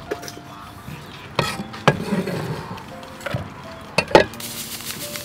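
A few sharp knocks of a cleaver on a thick wooden chopping board, the last two close together near the end, with a short rough scrape of the blade through the minced pile in between. Soft background music plays underneath.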